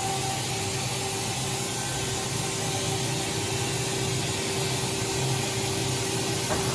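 Spindle of a 2014 OKK HM-6300S CNC horizontal machining center running steadily at about 7,000 RPM after its warm-up program, a constant hum with a few steady tones over a hiss.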